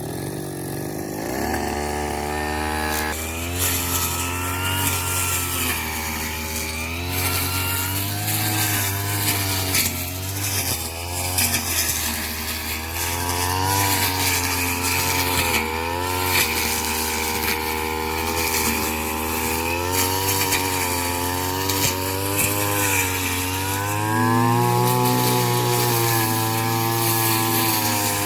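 A small petrol engine on a straw-cutting machine speeds up from idle about a second or two in, then runs fast with its pitch dipping and recovering as it cuts rice straw.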